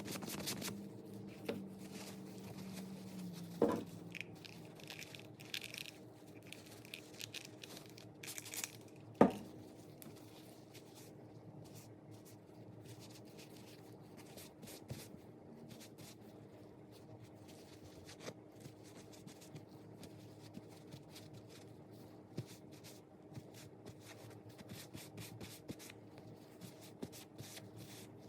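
Hands handling and rubbing leather, with faint rustling and scraping and two sharp knocks, the louder about nine seconds in, over a steady low hum.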